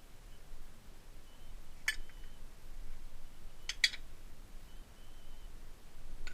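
Sharp clicks over a low steady hum: one about two seconds in, then two close together just before four seconds.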